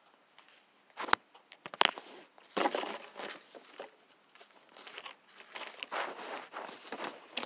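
Handling noise from a phone's microphone pressed into bedding: two sharp knocks, about one and just under two seconds in, then rustling and rubbing of fabric against the phone in uneven stretches.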